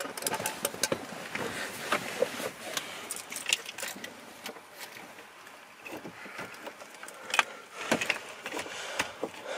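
Keys and a key fob jangling, with irregular sharp clicks and plastic rattles as the key is worked in the ignition lock at a pickup's steering column. A loud click comes right at the start.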